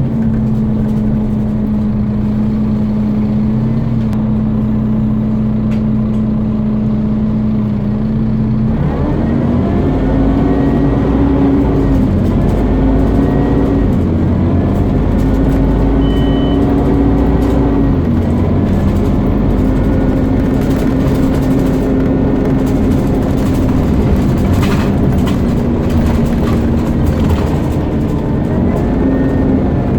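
Scania CN230UB Omnicity bus engine with the loud whine known as a "hoover". It holds a steady note for the first eight seconds or so, then pulls away, rising and dropping in pitch again and again as it accelerates and changes gear.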